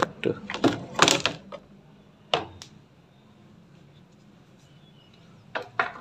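Plastic housing panels of an Electrolux washing machine being handled and shifted: a flurry of knocks and clatter in the first second and a half, another knock a little after two seconds, and two more knocks near the end.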